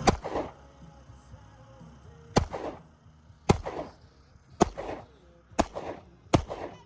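Six gunshots from a semi-automatic pistol, fired one at a time about a second apart, each with a short echoing tail.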